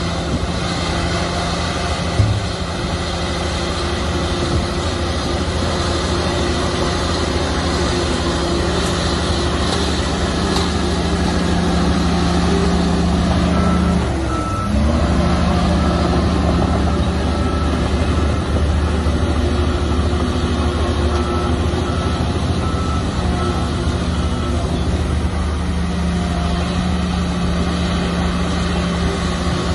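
Heavy diesel engines of a crawler bulldozer and dump trucks running steadily under load, the main engine note dipping and climbing back again about halfway through. A reversing alarm beeps in evenly spaced short beeps around the middle and again a little later.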